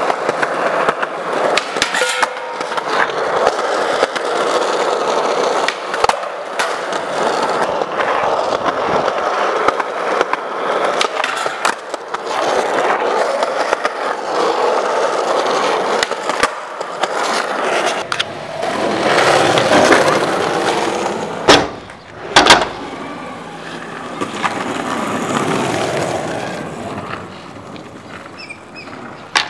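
Skateboard wheels rolling on smooth concrete, broken by a few sharp clacks of the board popping and landing, the loudest two a second apart about three quarters of the way through.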